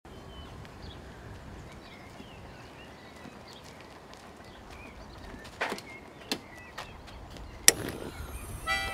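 Quiet outdoor ambience with faint birdsong, then a few knocks and one sharp bang about three-quarters of the way in from the back of a van being loaded with bouldering crash pads.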